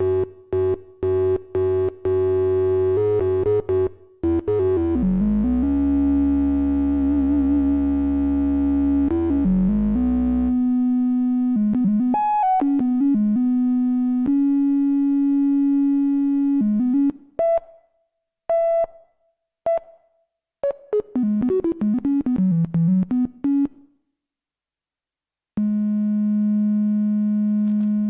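Ad-vantage 03M DIY analogue synthesizer playing single notes: short choppy notes, held tones and pitch glides sliding between notes, with one held note wavering in pitch. It drops out briefly near the end, then comes back on a long held tone.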